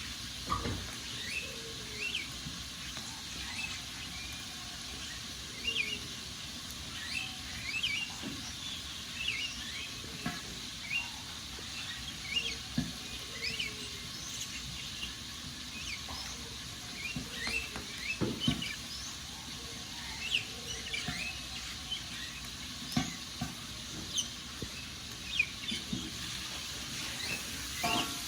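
Wood fire crackling, with scattered sharp pops over a steady hiss, while small birds chirp in short, frequent calls.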